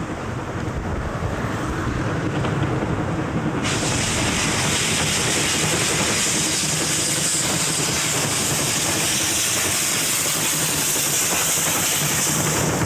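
Steam tank locomotive working a passenger train past at speed, with a low, busy rumble. About four seconds in, a loud, steady hiss of steam starts suddenly and carries on as the engine passes close, steam blowing from low at the front near the cylinders. The coaches rumble by over the rails near the end.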